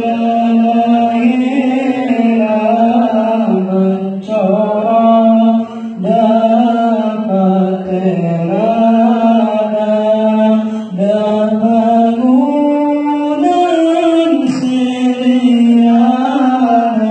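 A congregation of men chanting shalawat, the Arabic devotional praise of the Prophet, together in one melody. The notes are long and held and slide up and down in a slow chant.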